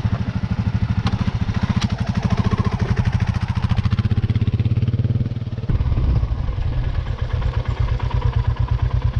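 Motorcycle engine running under way on a dirt track, its rapid firing pulses steady, with a brief dip and change in engine note a little over halfway through.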